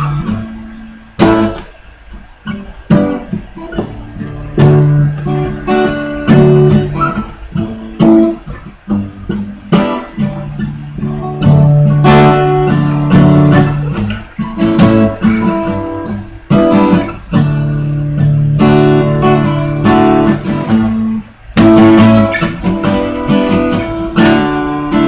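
Acoustic guitar being strummed, playing chords without singing.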